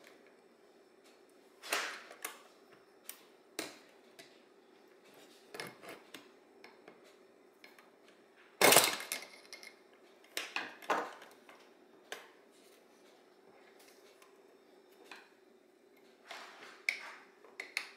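Small metal carburetor parts and hand tools clicking and clinking irregularly on a workbench as the carb is reassembled, with one louder knock a little before halfway through. A steady faint hum runs underneath.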